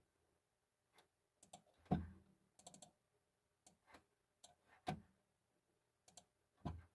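Scattered light clicks and taps, with a few soft thumps about two, five and near seven seconds in: someone handling a phone or tapping at a device while searching for a backing track.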